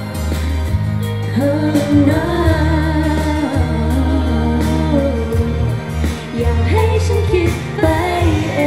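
Female pop vocal group singing live into handheld microphones over a pop backing track with a steady heavy bass, heard through the stage PA.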